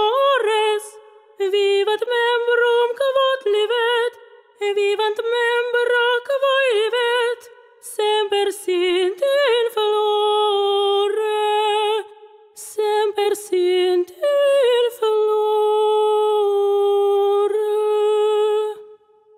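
A single high voice singing a melody unaccompanied, in short phrases with vibrato and brief pauses between them, ending on a long held note.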